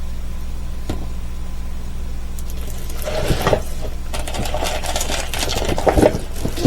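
Crinkling and rustling of the plastic film on large diamond painting canvases as they are handled, starting about two and a half seconds in as a dense run of small crackles, over a steady low hum.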